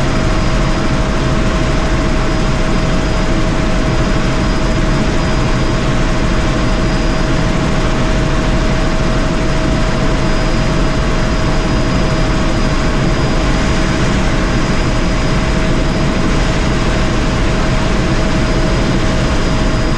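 Helicopter in flight heard from inside the cabin: steady, loud rotor and engine noise with a constant whine running through it.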